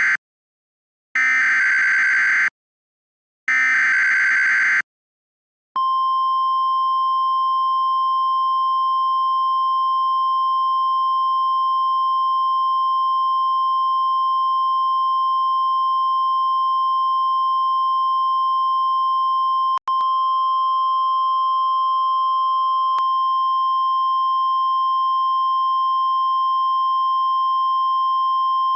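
Emergency alert tones: the end of one and then two more short, buzzy digital SAME header bursts, followed about six seconds in by the long steady 1050 Hz NOAA Weather Radio warning alarm tone. The tone breaks off for an instant near the end.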